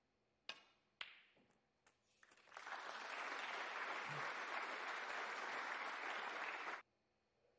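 A snooker cue strikes the cue ball and the cue ball cracks into an object ball half a second later, followed by a couple of fainter ball knocks. Audience applause then runs for about four seconds and cuts off abruptly.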